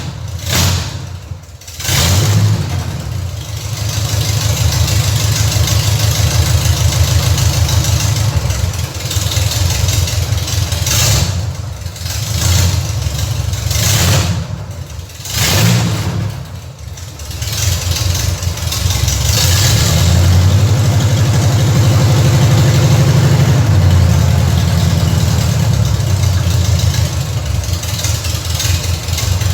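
Chevrolet Opala's four-cylinder engine running through a newly fitted 4-into-2 header straight out, with no muffler, idling and revved several times, with one longer held rev in the second half.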